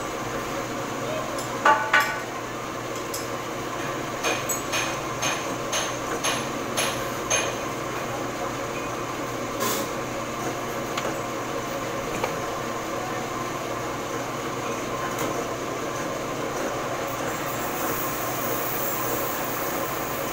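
Metal lathe running steadily with a large cylindrical workpiece spinning in its chuck. Sharp metallic clinks sound over it: two loud ones about two seconds in, then about eight lighter ones over the next few seconds and one more near the middle.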